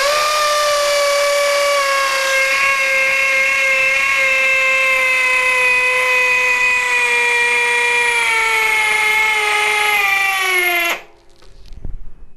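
Flex cordless hammer drill running at high speed in hammer-drill mode with turbo on, boring into a concrete block for about eleven seconds. It is a loud steady whine whose pitch sinks slowly as the bit goes deeper, then it cuts off suddenly.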